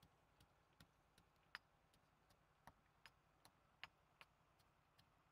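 Faint, irregular sharp crackles, about two a second, from a small wood fire burning under a clay pot.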